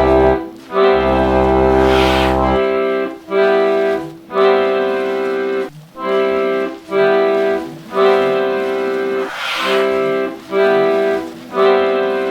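Instrumental keyboard music in an organ-like tone. One long chord over a deep bass note is held for the first couple of seconds, then the bass drops out and short chords follow one after another with brief breaks between them, roughly one a second.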